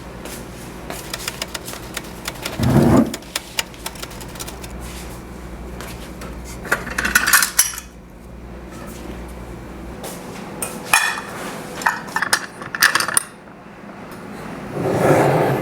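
Kitchen handling sounds: utensils and dishes clinking and knocking in a string of sharp clicks, with a dull thump about three seconds in, clattering spells about halfway and again a little later, and a heavier knock near the end.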